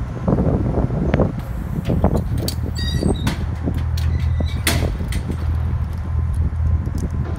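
Boom lift engine running at a steady low idle, with a few sharp metal clanks and a short jingling rattle near the middle as a worker climbs out of the basket.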